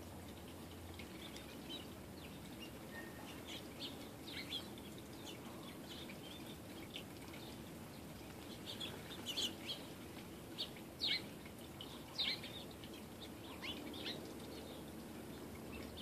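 Small songbirds at feeders chirping: scattered short, high chirps, with a louder flurry a little past halfway.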